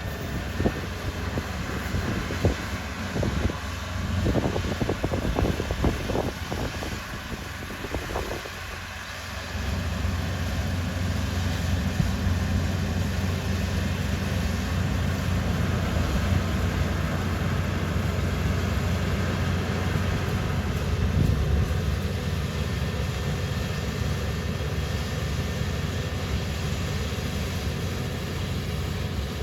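Irregular knocking and clattering, then about nine seconds in a machine starts and runs with a steady low hum.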